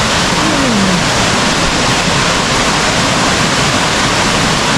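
Loud, steady rush of a large waterfall, water pouring down over rock.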